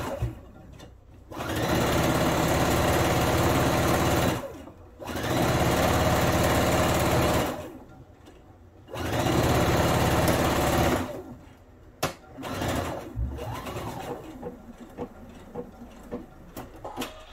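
Pfaff expression 3.5 computerised sewing machine stitching a seam in three steady runs of a few seconds each, with brief stops between them. After that come quieter fabric-handling noises and a few small clicks.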